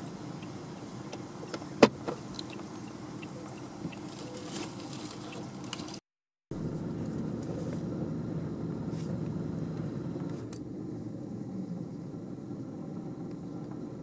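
Steady low rumble of a vehicle engine running, with a sharp click about two seconds in. The sound cuts out for half a second about six seconds in.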